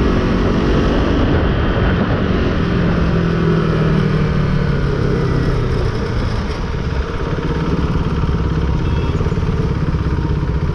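KTM RC 390's single-cylinder engine running at low speed over a steady low rumble; its note holds, then falls gently and fades into the rumble about six seconds in.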